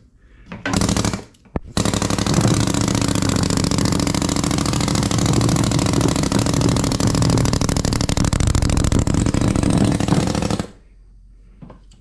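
Pneumatic sand rammer hammering rapidly, packing molding sand into a flask. Two short bursts about a second in, then a steady run of about nine seconds that stops abruptly near the end.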